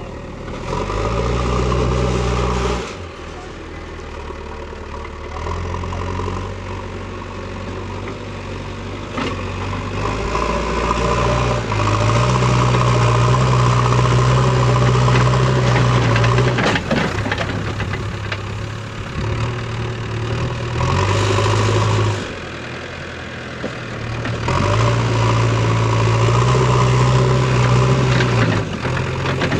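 JCB backhoe loader's diesel engine running, stepping up to higher revs for a few seconds at a time twice and settling back to idle in between. A sharp clatter cuts through about halfway.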